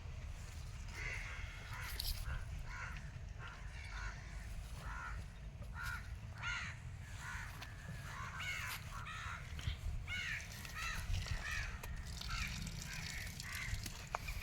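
Birds calling over and over, short sharp calls, with a steady low rumble underneath.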